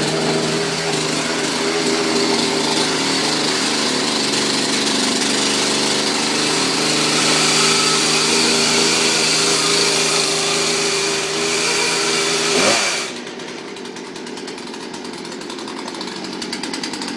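Gas chainsaw running fast, just started on half choke. About twelve seconds in its speed briefly rises, then it drops to a quieter, lower idle.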